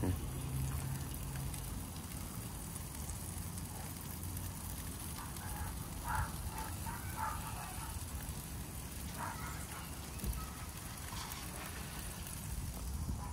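Tomahawk steak sizzling over a fire: a steady crackling hiss.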